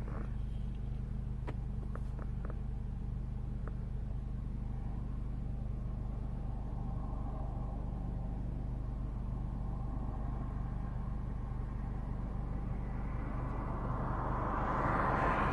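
Steady low mechanical hum, like an engine or motor running nearby. A vehicle's rushing sound swells louder over the last couple of seconds as it passes close.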